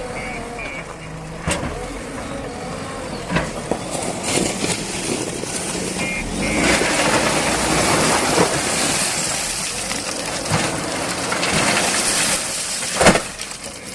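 Backhoe loader's diesel engine running under load, with a louder, noisier stretch in the middle. Several sharp knocks come through it, the loudest one near the end.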